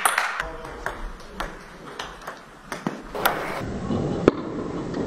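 Celluloid-type table tennis ball clicking sharply on bats, the table top and the floor, about a dozen irregular light knocks. A short noisy burst comes a little past three seconds in.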